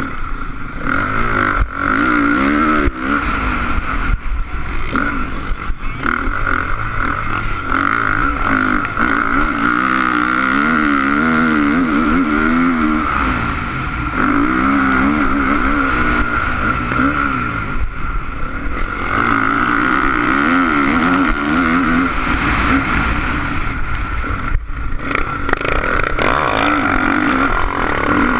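Honda CRF450 motocross bike's single-cylinder four-stroke engine revving hard, its pitch rising and falling over and over with throttle and gear changes, heard through a helmet camera with a steady rushing noise.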